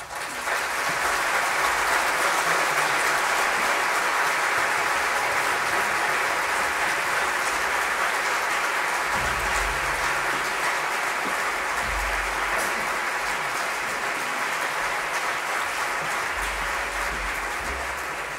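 Concert audience applauding, breaking out suddenly at the start and holding steady, easing off a little near the end.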